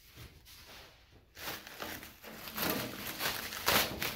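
Plastic bubble wrap rustling and crinkling as it is pulled off and handled, in irregular bursts starting about a second in.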